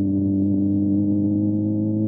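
Motorcycle engine running at steady throttle, its pitch creeping slowly upward as the revs build, heard muffled with little treble.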